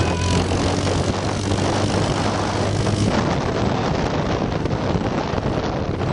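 Car driving off fast over a dirt drive, a low engine hum under heavy wind buffeting on the microphone; the engine hum fades about three seconds in.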